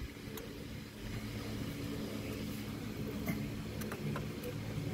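A steady low mechanical hum, like a motor running, with a few light sharp clicks as the A/C clutch plate and its shims are handled.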